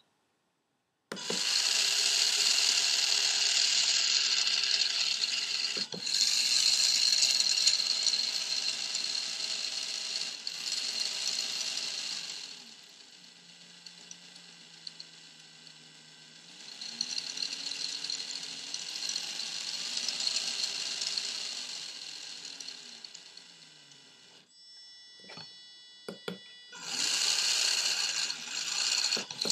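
A small motor-driven mechanism running with a high whir, starting about a second in. It eases off for a few seconds midway, leaving a low hum that slides in pitch, then picks up again. It stops about 24 seconds in, gives a few sharp clicks, and starts again near the end.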